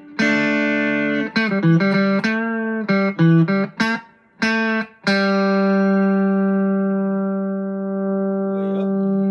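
Electric guitar played through a JHS Ross Compressor pedal in its vintage mode: a short phrase of picked notes and chords, then a single note held for about five seconds. The held note sustains evenly under the compression.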